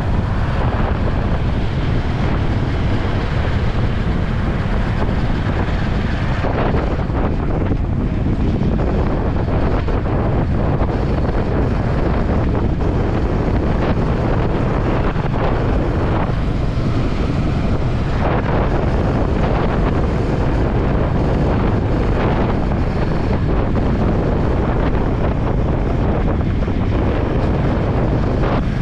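Heavy wind buffeting on the camera microphone, steady and loud, over a Honda Highness CB350 motorcycle's single-cylinder engine running at road speed on the expressway.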